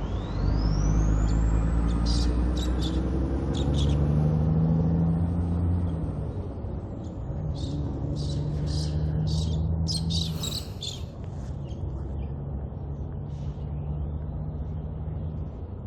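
Kenworth C509 prime mover's diesel engine working hard as it pulls away with an oversize bulldozer load. The engine note breaks and drops about six seconds in and again about eleven seconds in as it changes up through the gears. Birds chirp now and then.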